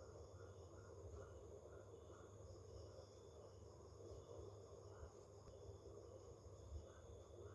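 Near silence with faint insects chirping steadily in the background over a low hum.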